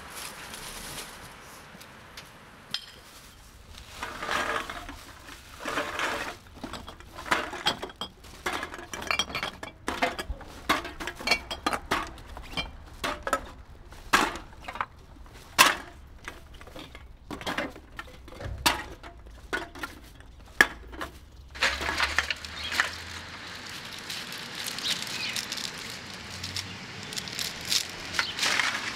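Rummaging through black plastic garbage bags: irregular clinks and knocks of hard items inside the bags, with the plastic rustling in stretches, most of all in the last several seconds.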